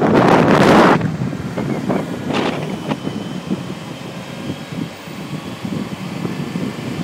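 A car driving along a city street, heard from inside with wind buffeting the microphone: loud gusting for about the first second, then a steadier, quieter rumble of road and engine noise.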